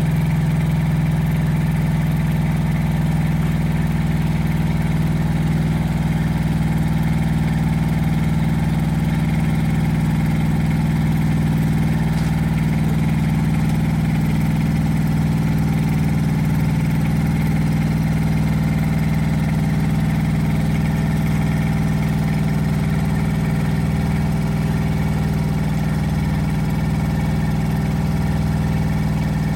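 Rippa R10 Eco mini excavator's engine running steadily at a constant speed.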